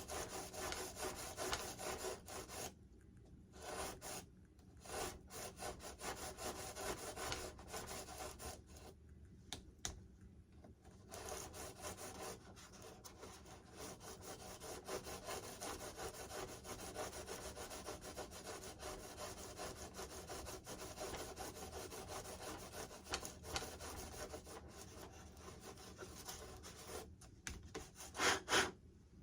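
A drill bit rasping and scraping in the foam of an RC jet's wing, reaming a hole wider in uneven strokes with short pauses, louder near the end.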